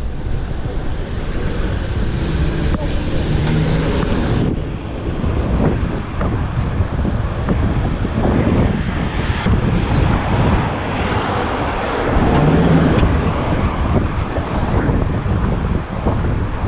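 Wind buffeting a GoPro's microphone as a bicycle rides along, a steady low rumble with road and traffic noise underneath.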